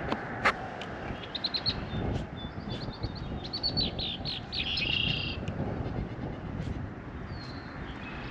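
A songbird singing a run of quick, rapidly repeated high chirps for several seconds, over a steady outdoor background hiss. A single sharp click comes about half a second in.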